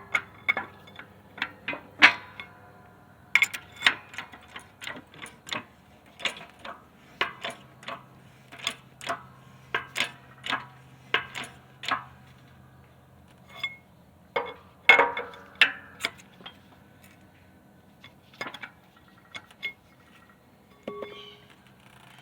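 Metal hand tools and hardware (sockets, washers, lug nut) clinking and clanking as they are handled and knocked together: irregular sharp metallic clicks, about one or two a second with a short ring, pausing briefly past the middle and thinning out near the end.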